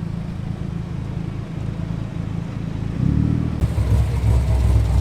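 Car engine running with a low, steady exhaust note that grows louder about three seconds in.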